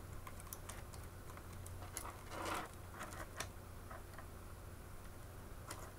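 Faint, scattered small clicks and scratches of fingers handling the plastic parts and wires of a toy RC helicopter being taken apart, with a slightly longer scratchy rustle about two and a half seconds in.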